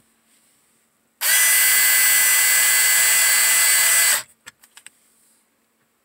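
Cordless power screwdriver running for about three seconds, starting a little over a second in and stopping abruptly, as it drives a screw into the dash trim panel.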